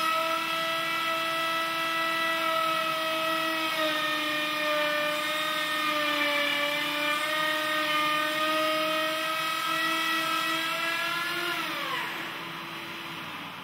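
Festool plunge router running under load as a cheap dovetail bit cuts a full-depth dovetail groove in hard beech in a single pass, a steady high whine that sags slightly midway. About twelve seconds in the pitch falls and the motor winds down, the overstressed bit having snapped at its thin neck.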